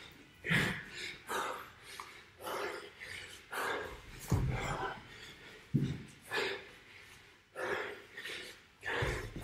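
A man panting hard from exertion, with loud breaths about once a second, and a few dull thuds on the floor.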